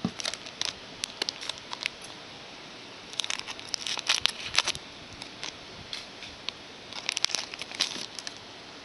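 Trading-card pack wrapper being crinkled and torn open by hand, in three bursts of crackling.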